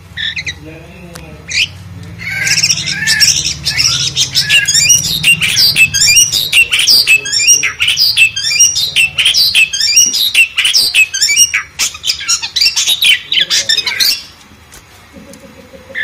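Asian pied starling (jalak suren) singing loudly: a fast, dense run of varied chattering notes that starts about two and a half seconds in and stops about two seconds before the end.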